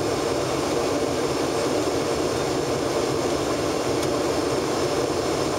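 Steady cabin noise inside an Embraer ERJ-145 regional jet in flight: an even rush of air with the drone of its two rear-mounted Rolls-Royce AE 3007 turbofans.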